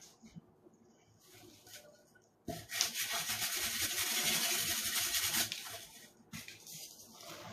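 A loud rasping rub against a surface for about three seconds, starting about two and a half seconds in, with fainter scratching before and after.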